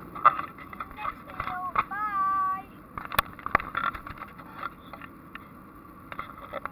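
Steady engine and airflow noise inside the cabin of a climbing airliner. Over it come brief voices of passengers, the loudest a drawn-out high voice, like a child's, about two seconds in, and a couple of sharp clicks a little after.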